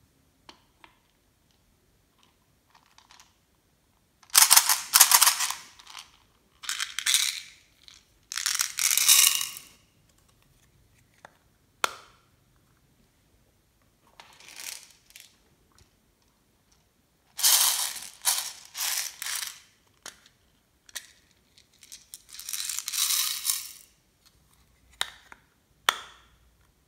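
Small plastic pearl beads rattling as they are shaken out of their container onto slime, in several separate bursts with a few sharp clicks between them.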